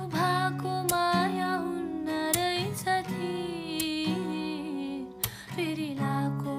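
Background music from a song: a wavering melody line over sustained low notes, with no words sung.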